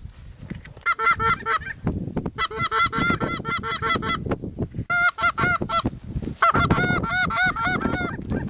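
Goose honking: rapid runs of short, repeated honks in several bursts with brief gaps between them.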